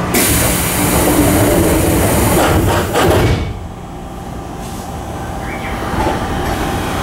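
Train's sliding passenger doors working at a station stop: a sudden rush of air hiss that lasts about three seconds and then drops away, leaving the train's low rumble.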